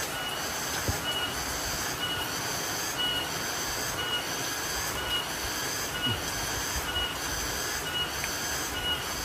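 A cicada (tonggeret) calling in a steady pulsing rhythm, about three pulses every two seconds, over the even hiss of rain.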